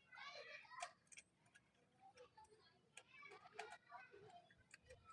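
Faint voices talking in the background, with scattered light clicks and taps.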